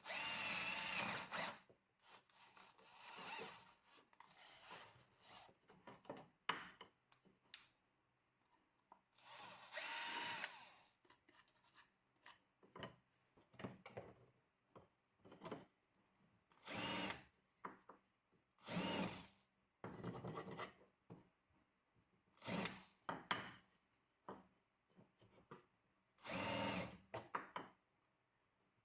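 12 V cordless drill-driver boring holes in a wooden slat, run in short bursts of a second or two with pauses between, about a dozen times.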